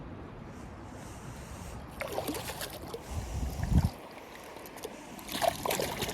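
Water splashing and sloshing with scattered knocks as a hooked catfish is played and drawn in against the current, starting about two seconds in and busiest near the end.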